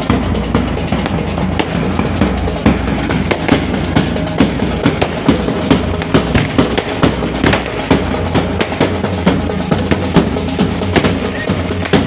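Pipe band drummers beating bass and side drums in a fast, loud rhythm, with many sharp strikes close together.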